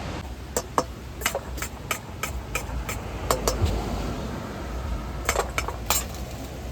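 Irregular clinks and knocks of utensils on dishes, about fifteen over several seconds, some with a short ring, over a low steady rumble.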